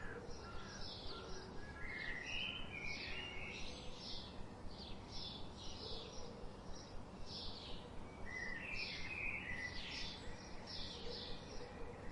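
Birds chirping: a quick string of short, high chirps, with a few lower warbling notes joining in about two seconds in and again about eight seconds in, over a faint outdoor background.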